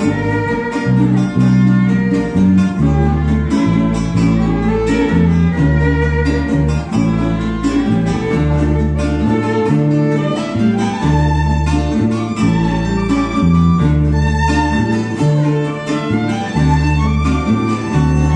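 Venezuelan waltz played by a small string ensemble: a violin over strummed cuatros and guitar, with a bass marking the beat.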